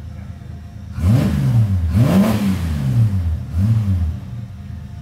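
Holden Kingswood race car's engine idling, then revved hard several times from about a second in, the pitch climbing and falling with each throttle blip.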